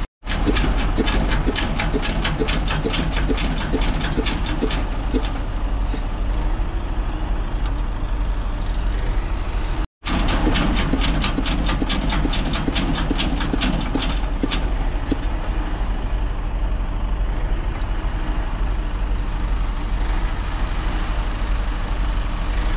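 Old diesel engine on a tank trailer being started while cold: a quick, even run of sharp knocks that fades out over several seconds, twice, over a steady low engine hum.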